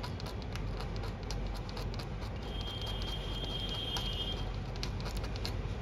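Metal blade scraping and picking at the burnt copper and fibreglass layers of a laptop motherboard, with small irregular scratches and clicks, to clear a 19 V rail shorted to the inner ground layer. A faint high steady tone sounds for about two seconds in the middle.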